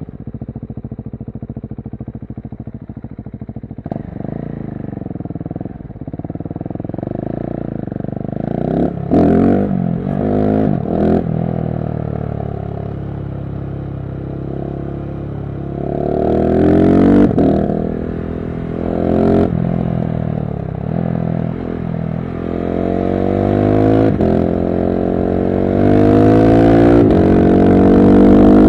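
KTM 690 SMC-R single-cylinder engine through a LeoVince One Evo slip-on exhaust, ridden hard. It runs low and even at first, then accelerates again and again, its pitch climbing and dropping back at each gear change, with a few sharp cracks a third of the way in. It is loudest near the end.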